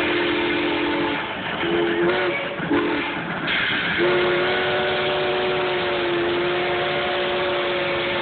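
Steam locomotive whistle blowing for a grade crossing as the engine approaches: a long blast, two short blasts, then a long held blast from about four seconds in.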